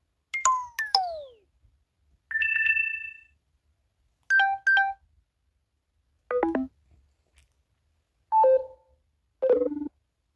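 A run of different mobile phone low-battery alert sounds, one after another with short pauses: first two quick falling chirps, then a held two-note beep, a quick double beep, and three brief chimes.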